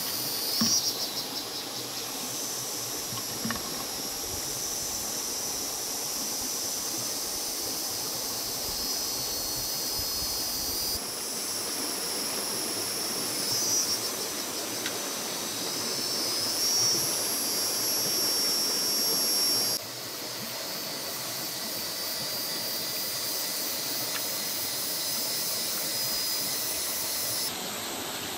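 Forest insects buzzing in a steady high-pitched drone over an even hiss. The drone shifts abruptly in pitch and level several times. A few light knocks come near the start.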